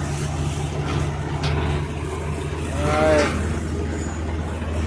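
Diesel engine of a hydraulic excavator running steadily at a low, even hum. A person's voice calls out briefly about three seconds in, the loudest moment.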